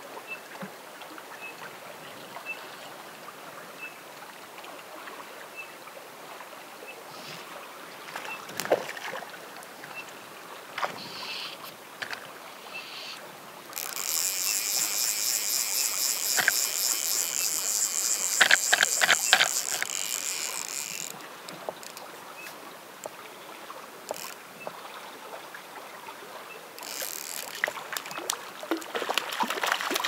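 Flowing spring-creek water lapping close by, with a faint tick repeating about once a second. About halfway in, a much louder high hiss sets in for about seven seconds, with several sharp clicks in it, and it comes back near the end.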